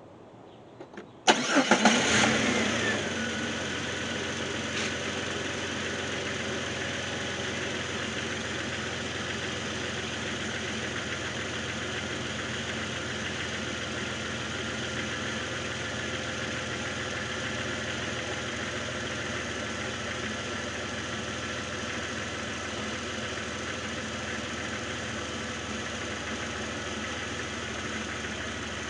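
Jeep engine starting about a second in, catching at once with a brief loud flare, then settling into a steady idle. Its owner hears a noise he puts down to the power steering possibly going out.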